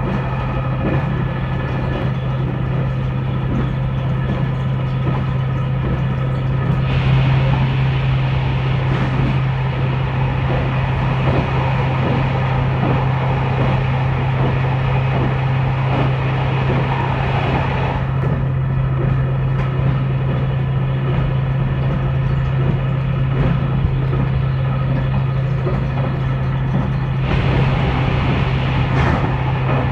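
Diesel railcar running along the line, heard from the cab: a steady low engine drone over the rumble of the wheels on the rails. The sound turns brighter and more echoing about 7 s in, dulls again about 18 s in, and brightens once more near the end as the train runs through tunnels.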